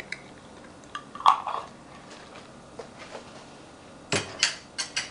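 A metal spoon and glass jars handled on a kitchen counter. There is a single ringing clink about a second in, then a quick run of four or five knocks and clatters near the end.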